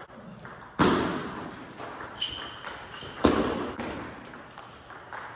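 Table tennis play in a large hall: two loud sharp knocks of the ball and bats about two and a half seconds apart, each with a long echo, among a few lighter clicks. A couple of short high squeaks come between them.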